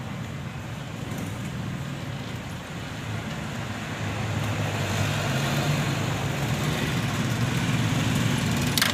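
A motor vehicle engine running steadily, growing louder about halfway through, with a sharp click near the end.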